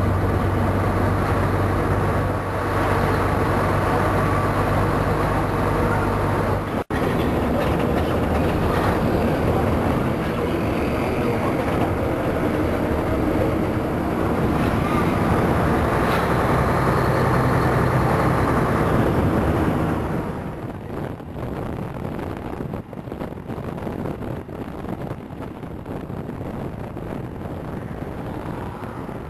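Road noise heard from inside a moving vehicle: its engine hums steadily under the rush of tyres and air. The sound cuts out for an instant about seven seconds in. From about two-thirds of the way through it is quieter and windier.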